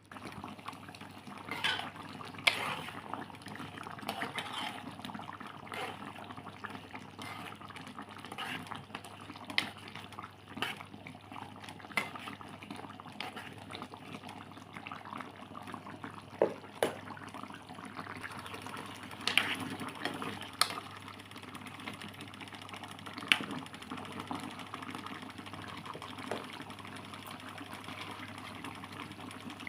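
Food bubbling at a simmer in a pan, a steady hiss with scattered sharp pops and clicks.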